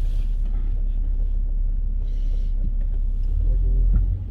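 A low, steady rumble, with a brief hiss about halfway through.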